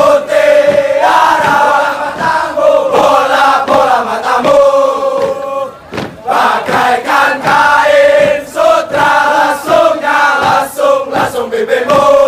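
A group of voices chanting a yel-yel, an Indonesian spirited group chant, in unison in short sung phrases. There is a brief pause about six seconds in.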